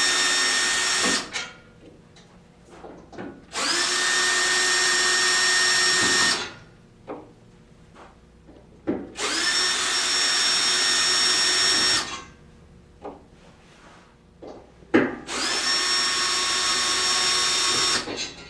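Cordless drill backing out the bolts that hold a chaise lounge's aluminum rail. One run ends about a second in, and three more steady runs of about three seconds each follow. Each run's whine climbs briefly in pitch as it starts. Short clicks and knocks come between the runs.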